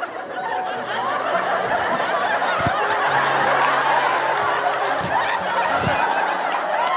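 Theatre audience laughing, many voices together, swelling about a second in and staying loud, over low held music notes.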